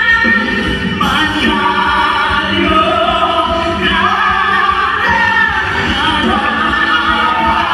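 Music with sustained singing voices.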